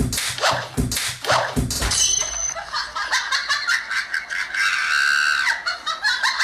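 A few thumps in the first two seconds as a man slips and falls onto a kitchen floor, then high-pitched laughter.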